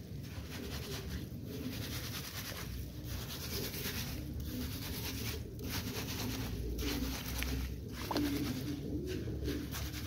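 Pigeons cooing, over the wet swishing of a hand stirring grain in water in a metal tub, in strokes about every second and a half.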